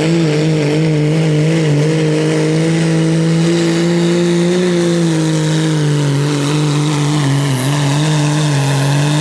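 Second-generation Dodge Ram diesel pickup's 5.9 L Cummins inline-six at full throttle under load, pulling a sled with its exhaust stacked through the hood, held at high, steady revs with a high whine above the engine. The pitch eases down a little over the last few seconds as the pull bogs the engine.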